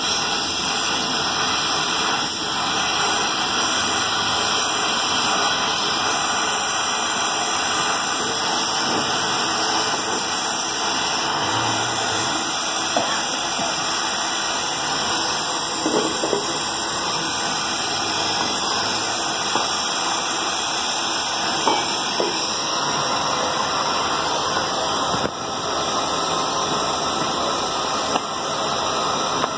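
Gas welding torch flame burning with a steady hiss while a metal lota is joined, with a few light clicks of metal now and then.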